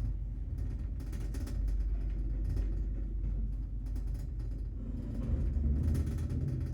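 Passenger lift car travelling in its shaft: a steady low rumble that grows a little louder about five seconds in.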